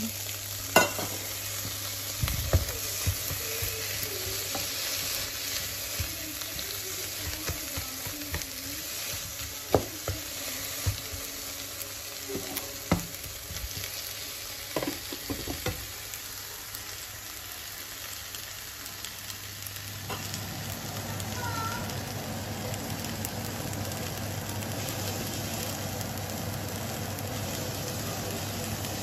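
Tomato wedges sizzling in hot oil in a nonstick frying pan with scrambled egg and scallions, a spatula scraping and knocking against the pan several times in the first half. A steady low hum joins the sizzle about two-thirds of the way through.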